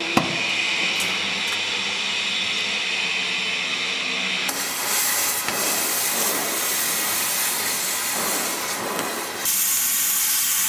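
Gas cutting torch hissing steadily as it burns through steel, throwing sparks. The sound changes abruptly twice, about four and a half and nine and a half seconds in.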